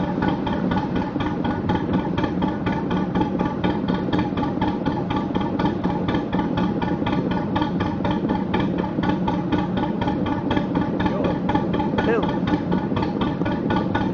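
Narrowboat's National 2DM two-cylinder diesel engine running with a steady, even beat as the boat moves slowly ahead.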